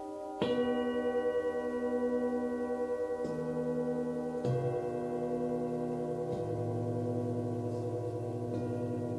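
A set of hand-forged Nepalese singing bowls struck one after another with a mallet, about five strikes, each bowl ringing on so that their tones overlap with a slow wavering beat.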